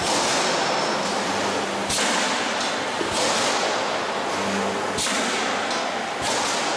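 Pressed-steel transformer radiator production line running, a dense steady machine noise broken by a sharp clank every second or two. Several of the clanks are followed by a hiss that fades away.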